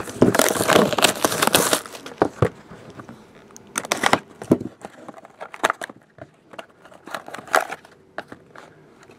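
Shrink-wrapped cardboard trading-card boxes being handled and set down on a table: plastic wrap crinkling and boxes sliding and knocking. The crinkling is dense for about the first two seconds, then thins to scattered crackles and light clicks.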